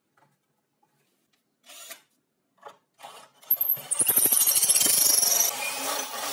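A few light handling knocks, then a power drill starts about three and a half seconds in. It bores a pocket hole into a board through a homemade pocket-hole jig's angled guide and keeps running steadily.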